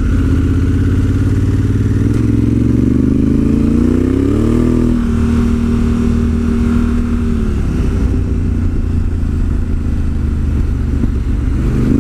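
Honda Africa Twin CRF1000L's parallel-twin engine pulling on the move. Its pitch rises for a few seconds, drops sharply about five seconds in as the dual-clutch gearbox shifts up, holds steady, then falls away again about eight seconds in.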